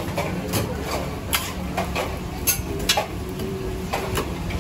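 Metal spatula clinking and scraping on a flat steel griddle as roti canai are turned, a string of sharp clicks at irregular intervals over a steady low kitchen rumble.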